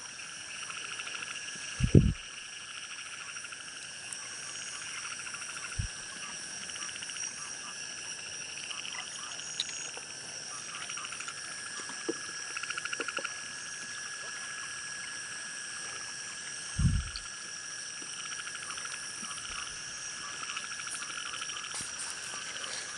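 A steady chorus of frogs and insects calling, with a couple of low thumps, about two seconds in and again about seventeen seconds in.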